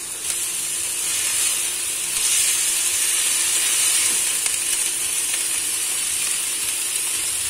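Raw chicken strips sizzling in hot oil in a non-stick wok as they cook from pink to white, with a slotted spatula stirring them around. The sizzle is a steady hiss that grows louder about two seconds in.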